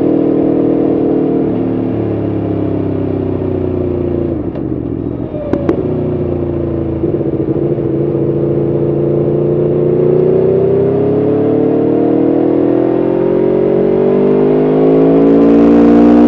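Aprilia Tuono V4 1100RR's 65-degree V4 engine heard on board while riding through bends. Its pitch drops as the bike slows about four seconds in, two sharp clicks come around five and a half seconds, and then the pitch rises and falls as it pulls out of the corners.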